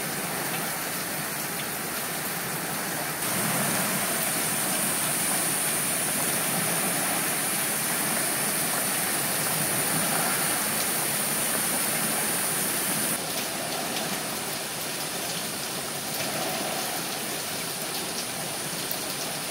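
Heavy rain falling steadily on a roof and wet surfaces, an even hiss that is a little louder through the middle stretch.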